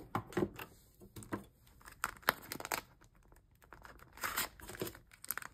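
Desk handling sounds: a few knocks as a calculator is set down on the desk, then a clear plastic cash envelope crinkling and paper bills rustling as the cash is slid out and laid flat.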